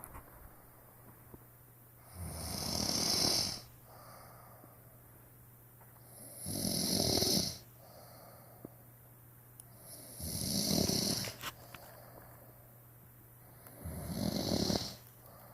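A sleeper snoring: four long snores about four seconds apart, each building up in loudness and then stopping.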